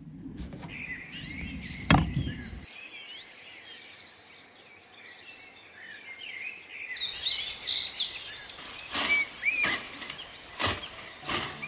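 Small birds chirping and singing outdoors. There is a low rumble with a single sharp knock in the first few seconds, and a run of irregular sharp knocks in the last few seconds.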